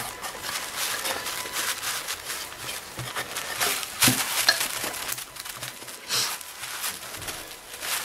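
A cloth rag rubbing and rustling over a bare aluminium Kirby vacuum motor hood, wiping off metal polish, with a few knocks as the metal part is turned over and handled. A faint steady whistle runs underneath.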